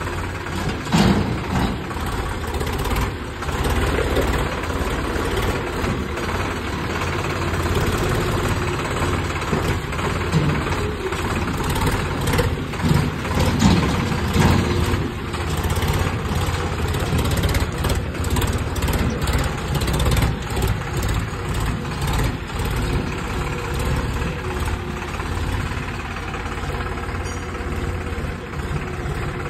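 Sonalika DI 35 tractor's three-cylinder diesel engine running steadily as it pulls a trolley through mud and over rough ground. The engine note swells and rises at times, loudest around the middle.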